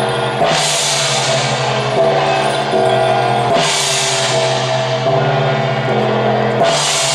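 Temple-procession percussion music: drumming and large hand cymbals, with three cymbal crashes about three seconds apart, over a held melody that steps from note to note.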